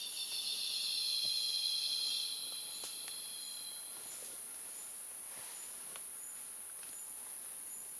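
Tropical forest insect chorus: a steady high-pitched hiss of insects, with a second, lower insect chorus over the first half that stops about four seconds in. A few faint ticks come through.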